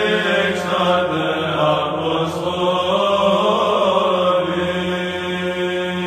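Orthodox Byzantine chant: voices singing a slow melody over a steady held drone (the ison), part of a Paschal (Easter) chant.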